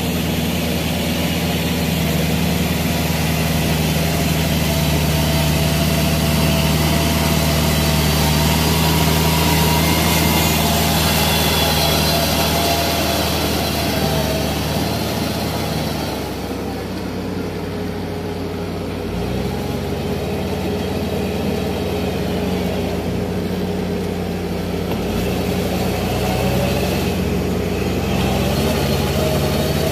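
Kubota L5018 tractor's diesel engine running steadily as it drives a rear rotary tiller through a wet rice paddy. The engine note dips lower a little over halfway through, then holds steady again.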